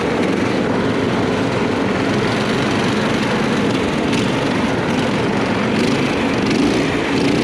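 The four small engines of a four-engine go-kart (848cc in all, one driving each wheel) running together as the kart drives across rough ground. It is a steady, dense engine drone with a few faint knocks.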